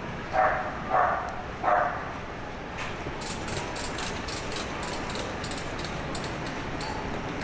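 A dog barks three times in quick succession in the first two seconds, over steady street background noise. From about three seconds in, a rapid run of light, sharp ticks follows for a few seconds.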